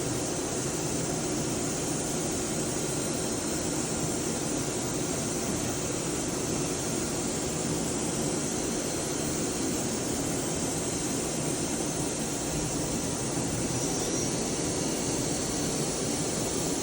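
Daewoo DMV-3016 CNC vertical machining center running with its spindle turning at 2,000 RPM: a steady, even machine hum and hiss that does not change.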